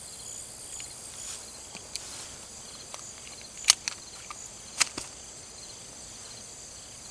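Insects chirping steadily in the grass, a faint high pulsing trill, with a few sharp clicks and knocks of handling, the loudest two about halfway through.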